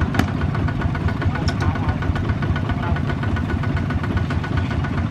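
Two-wheel walking tractor's engine running with a steady, rapid chugging, and one sharp click shortly after the start.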